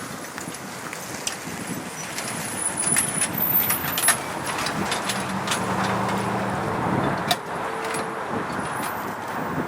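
Passenger train passing close by: a steady rush with many sharp clicks of wheels over rail joints, and a low engine hum coming in about five seconds in.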